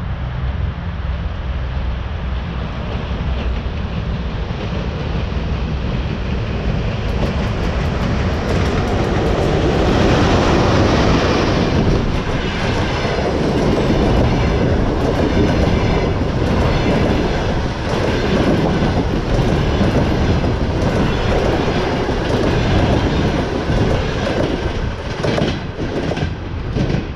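An EP1M electric locomotive hauling a passenger train passes at speed. A low rumble swells as the locomotive goes by about ten seconds in. Then comes a long run of regular clickety-clack from the coaches' wheels over the rail joints, easing off near the end.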